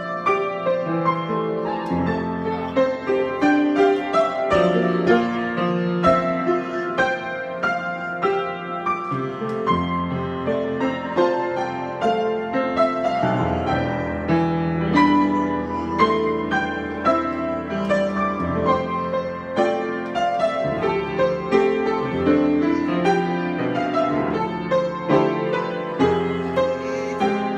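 Solo piano improvisation: chords and melody notes played over low, held bass notes.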